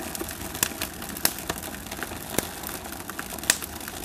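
Fire burning: a steady rushing noise with irregular sharp crackles and pops.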